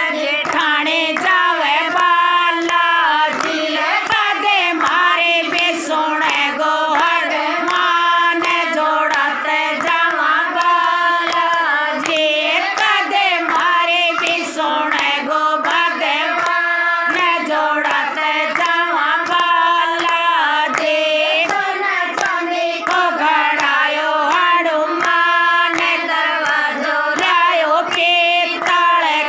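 A group of women singing a Hindu devotional bhajan to Hanuman, clapping their hands in time with the song.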